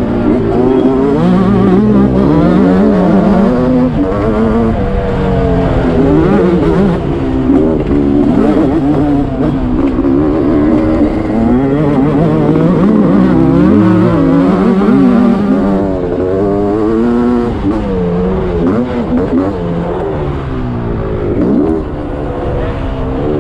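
Two-stroke motocross bike engines revving hard and backing off again and again as they are ridden around a dirt track, their pitch rising and falling every second or two.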